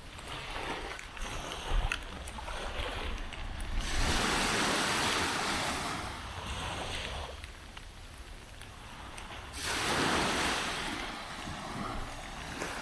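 Small waves breaking and washing up a sandy beach, coming in as slow surges about four seconds in and again near ten seconds. A low wind rumble on the microphone runs beneath.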